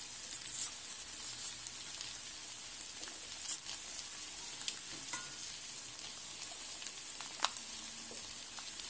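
Stew sizzling steadily in a frying pan, with scattered crinkles and small clicks as the foil-paper wrapper of a stock cube is torn open and the cube crumbled.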